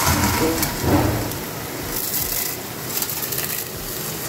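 Crisp fried noodles crackling and crunching as they are crushed between the hands and dropped into a metal pan, in a few separate bursts.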